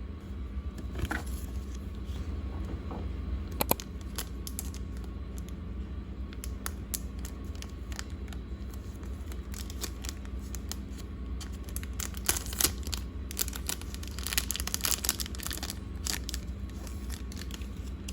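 Hands squishing and stretching a stretchy toy slime: sticky clicks, pops and crackles come in irregular bursts, busiest in a stretch about two-thirds of the way through.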